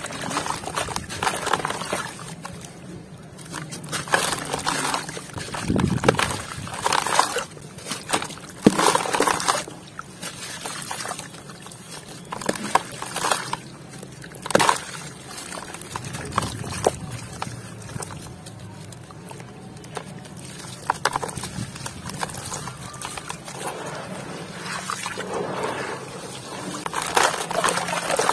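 Gritty chunks crushed and crumbled by hand into a plastic tub of muddy water: crunching grit with splashing and sloshing, in irregular bursts.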